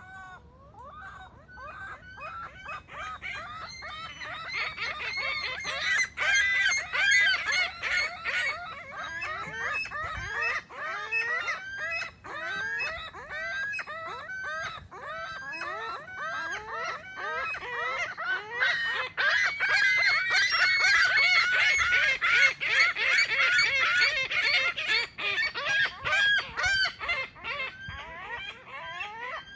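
A group of gulls calling at once, a dense, continuous chorus of overlapping squawks and yelps that builds louder a few seconds in and is loudest past the middle.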